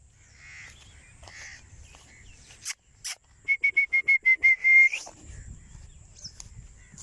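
A person whistling to call a dog: a quick run of about nine short, high whistled notes at one pitch over a second and a half, ending in a longer note that rises at the end. Two sharp clicks come just before.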